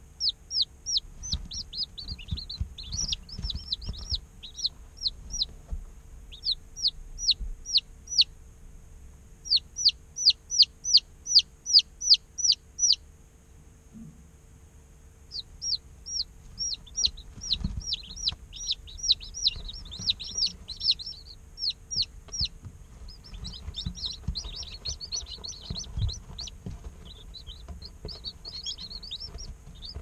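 Day-old chicks peeping: runs of short, high, downward-sliding peeps, about three a second, that stop for about two seconds midway and then return as a denser, overlapping chorus from several chicks.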